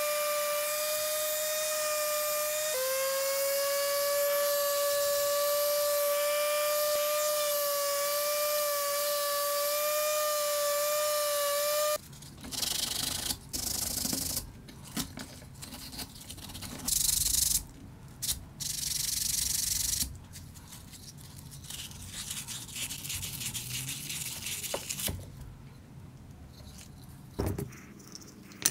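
Electric random orbital sander running with a steady whine, a small wooden piece held against its pad; the pitch dips slightly about three seconds in and the sander cuts off about twelve seconds in. Then sandpaper is rubbed by hand over the wood in short strokes, followed by quieter handling of the wooden pieces.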